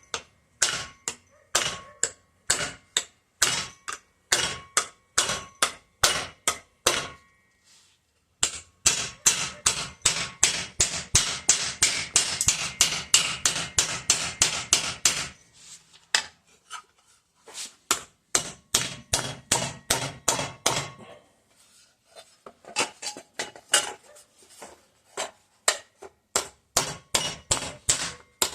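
Hand hammer striking steel plate, bending a frame patch over a block: sharp metallic blows about two to three a second, then a long run of faster, unbroken blows in the middle, then steadier blows again after a short pause.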